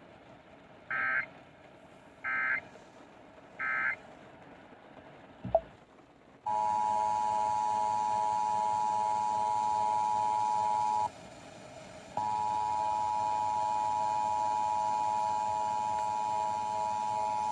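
Emergency Alert System tones. First come three short warbling digital data bursts about a second and a half apart, the end-of-message code, then a click. About six and a half seconds in, the steady two-tone EAS attention signal (853 and 960 Hz) starts over hiss. It drops out for about a second and then resumes.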